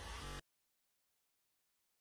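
Near silence: a moment of faint room tone, then the sound cuts off abruptly to total silence.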